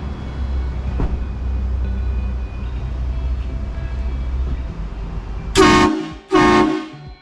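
Hornblasters Conductor's Special train horn mounted on a pickup truck, sounding two short, loud blasts close together near the end. Before the blasts there is a low steady rumble.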